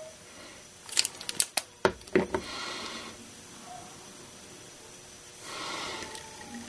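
Handling of small paper craft pieces and a glue bottle on a work table: a quick cluster of light taps and clicks about a second in, followed by soft rustling.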